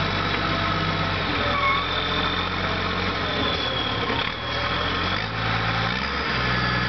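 Caterpillar wheel loader's diesel engine running steadily. Its note drops about a second in and rises again around five seconds in as the engine speed changes.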